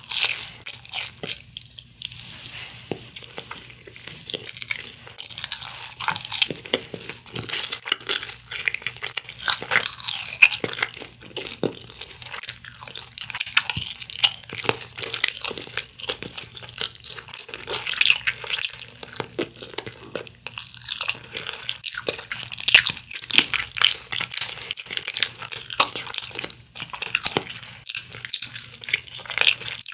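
Crunching and chewing of crispy fried chicken, Kyochon Honey Combo wings and drumsticks, eaten by hand: a steady run of sharp crackles as the coating is bitten and chewed.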